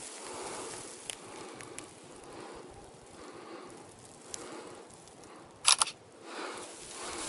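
Handling noise and rustling of dry grass at a close, body-held camera, with a few light clicks and a sharp double knock about six seconds in.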